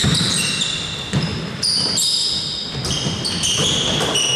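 A basketball bouncing on a hardwood court, with many short, high-pitched squeaks of sneakers on the floor.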